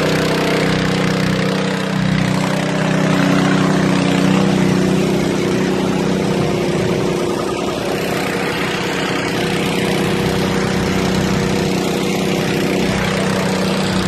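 Engine running steadily at a constant speed, a droning hum with a slight change in pitch about two seconds in, over a wash of noise.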